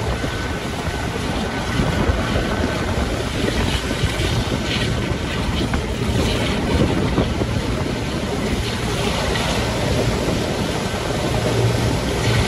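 A train on the move, heard from an open carriage window: the Class 52 'Western' diesel-hydraulic locomotive's twin Maybach engines working ahead under heavy wind buffeting on the microphone, with the rumble of the train running along the track.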